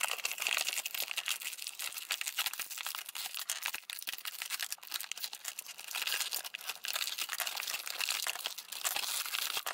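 Clear plastic toy packaging crinkling and crackling as it is handled and pulled from a cardboard box, with cardboard scraping against it.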